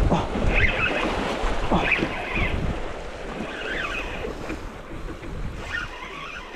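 Small sea waves washing and splashing over shoreline rocks, with wind buffeting the microphone.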